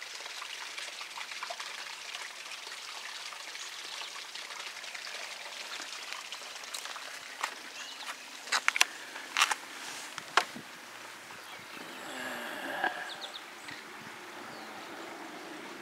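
Outdoor ambience: a steady airy hiss, with a handful of sharp clicks in quick succession about seven to ten seconds in and a few faint high chirps near the end.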